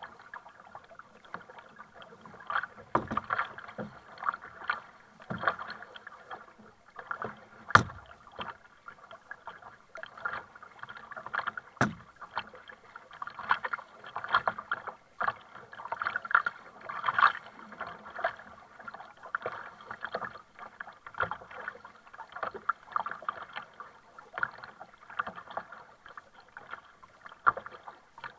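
Kayak paddle strokes: the blades dip and splash in turn, with water sloshing against the plastic hull. Two sharp knocks come about four seconds apart, the first the loudest sound.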